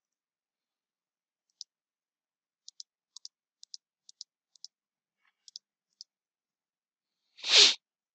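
Computer mouse clicking: about a dozen light clicks, several in quick pairs like double-clicks, spread over a few seconds. A short rush of breath near the end.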